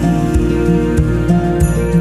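Gentle background music with sustained notes over a soft, steady beat.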